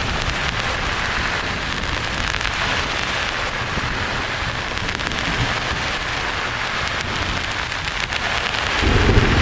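Steady rain-like hiss from a thunderstorm sleep-sound track, with a low rumble of thunder building near the end.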